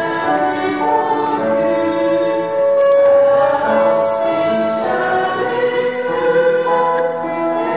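A choir singing a slow piece in several parts, with long held notes.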